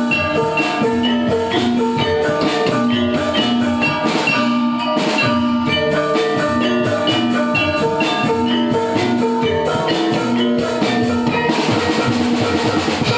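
Javanese gamelan music: bronze metallophones ring out a repeating melody over a steady drum rhythm.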